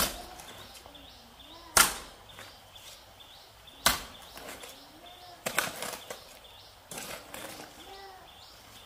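Sharp knocks, five of them about every one and a half to two seconds, the fourth a quick cluster of several.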